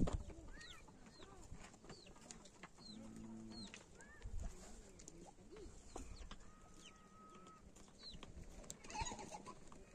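Faint farmyard birdsong: small birds repeating short, quickly falling chirps, with a chicken clucking low about three seconds in.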